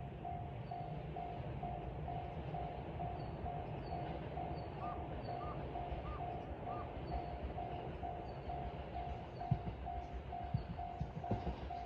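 Japanese railway level-crossing alarm ringing steadily at about two and a half strikes a second, warning that a train is coming. Under it is a low rumble, with knocking thumps from about nine and a half seconds in as the train draws near.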